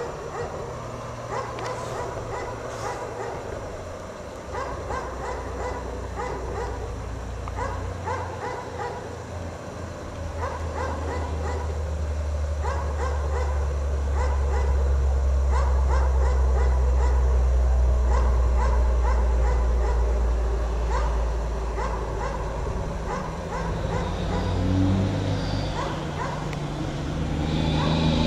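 A dog barking repeatedly. From about ten seconds in, the low rumble of a vehicle engine swells up beneath the barks and fades again toward the end.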